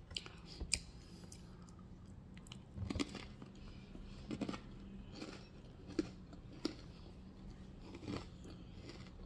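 Close-up chewing of a fatty piece of mutton, with irregular wet mouth clicks and smacks every second or two over a faint steady hum.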